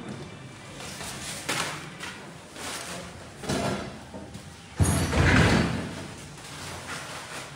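A sudden loud thump about five seconds in, dying away over about a second, after a few fainter knocks.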